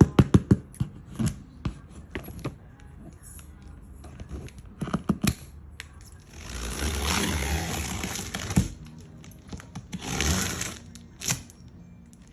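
Cardboard box and packaging of an artificial Christmas tree being opened by hand: a quick series of sharp taps and clicks at the start, more clicks about five seconds in, then a long tearing, scraping sound of about two and a half seconds and a shorter one about ten seconds in.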